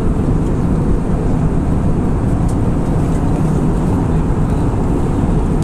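Steady engine and airflow noise inside the cabin of an Airbus A319 airliner in flight, heard from a window seat over the wing during the descent.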